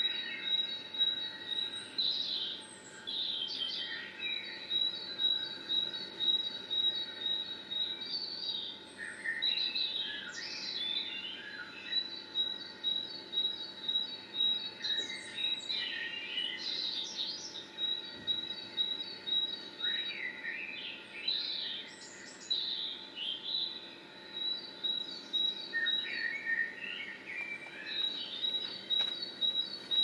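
Songbirds singing: short, varied warbling phrases every few seconds over a continuous high, fast run of repeated notes.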